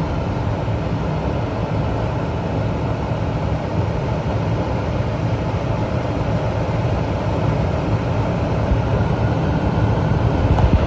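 Gas furnace running with its burners lit, a steady rumble of flame.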